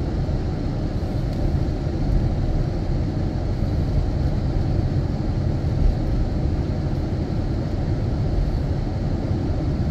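Steady road noise inside a moving car: an even, low rumble of the car driving along a paved road, with no distinct events.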